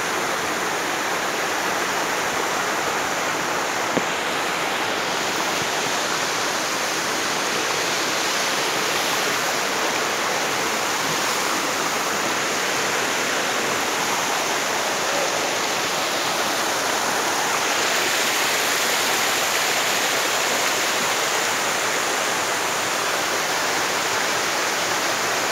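Steady rush of water from a small waterfall and a stream running over rocks.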